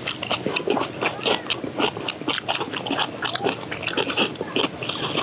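People chewing crunchy kimchi close to the microphone: a run of irregular wet crunches and mouth smacks.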